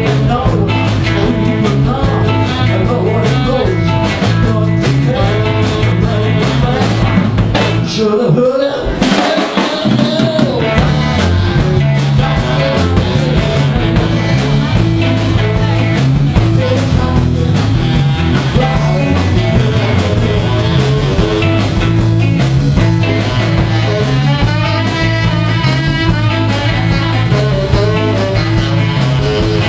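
Live blues band playing: electric guitar over a drum kit and a steady repeating bass line, which stops briefly about eight seconds in and then comes back.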